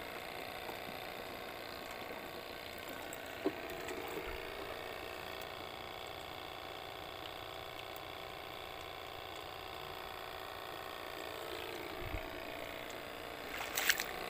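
Steady buzz of a small battery-powered air pump aerating a plastic jerrycan of water, with a single click about three and a half seconds in and light knocks near the end.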